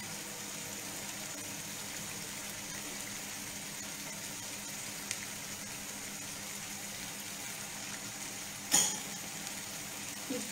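Tomato sauce with salmon and zucchini simmering steadily in a frying pan on a gas burner. A single sharp clack about nine seconds in.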